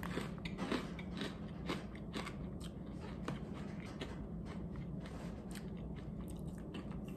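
Chewing a crunchy sourdough pretzel bite: a run of sharp crunches, closest together in the first second or so, then steady crunchy chewing.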